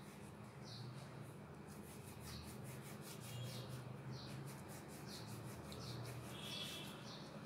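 A hand rolling and shaping balls of bread dough on a wooden board: faint, quick rubbing strokes that come thickest in the middle of the stretch, over a low steady hum.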